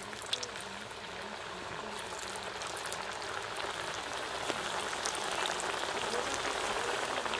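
Semolina cutlets deep-frying in a wok of hot oil: a dense, steady sizzle that grows gradually louder as more cutlets are slipped into the oil.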